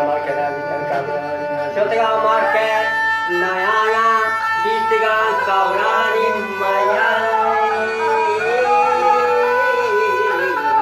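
Balochi folk music: a bowed fiddle melody that bends and slides, over the steady drone of a long-necked tamburag lute.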